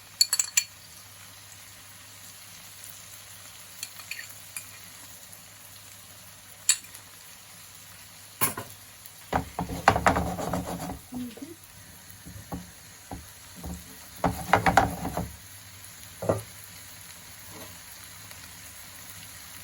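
Tofu and egg sizzling gently in a clay pot while a ladle stirs and scrapes through the sauce, with a few sharp clinks and two longer bouts of stirring about halfway through.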